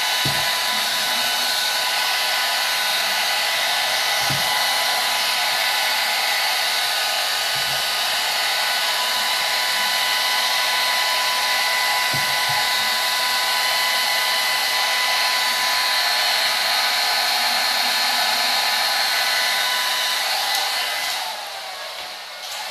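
Handheld hair dryer running steadily, a whine over the rush of air, drying a coat of paint on a craft piece; it is switched off about 21 seconds in.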